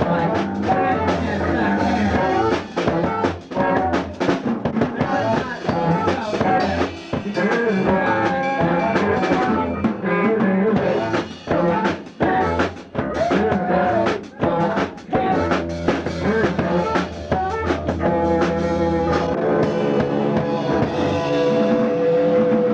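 Rock band playing a song: drum kit with frequent hits, guitar and a steady low bass line. About three-quarters of the way through, a long held note sounds over the band.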